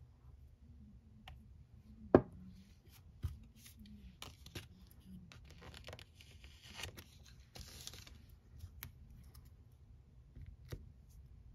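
Nail-art stamping tools being handled on a metal stamping plate: a sharp tap about two seconds in, scattered small clicks, and a couple of seconds of scraping as the stamping polish is scraped across the plate.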